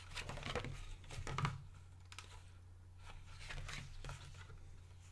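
Paper pages of a hardcover art book being turned and smoothed by hand, with soft rustling sweeps in the first second and a half and again near four seconds.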